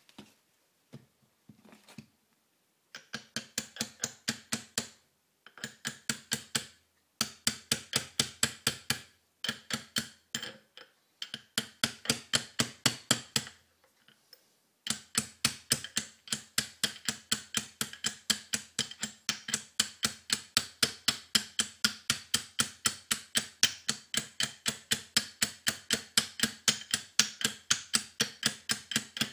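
Sharp metallic clicking, about three or four clicks a second, from parts of an early Shovelhead four-speed gearbox being handled during reassembly. It comes in short runs with pauses at first, then runs steadily from about halfway in.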